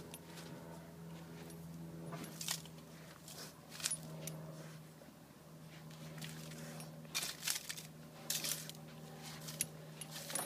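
A dog nosing gravelly soil and dry leaves over a buried bone, making scattered crisp scrapes and gravel clicks, loudest about four seconds in and again in a cluster past the middle. A steady low hum runs underneath.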